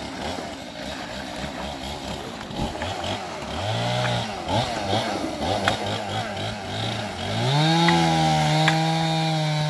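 Chainsaw engine running unevenly at low speed, then revved up about three quarters of the way in and held at a steady high pitch.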